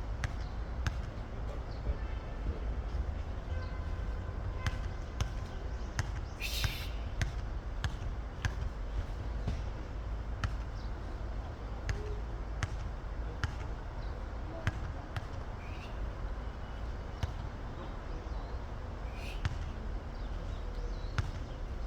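Robot vacuum cleaner bumping against a door threshold as it tries to climb over it: repeated sharp knocks, about one or two a second, over a steady low motor rumble, with two short hissing scrapes.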